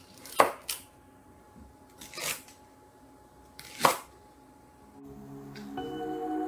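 Chef's knife cutting through a thick green onion onto a wooden cutting board: four crisp cuts, two in quick succession near the start, one about two seconds in and one about four seconds in. Soft music fades in near the end.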